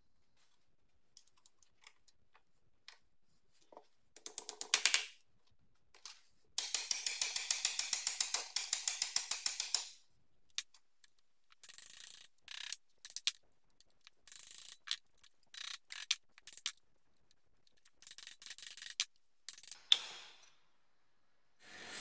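Metal-on-metal clicking and rattling at a steel bench vise as bent sheet-steel toolbox parts are worked straight. A few faint ticks come first, then a quick run of clicks, then a rapid rattle of about ten clicks a second lasting several seconds, and after that a series of short scraping bursts with a sharp click near the end.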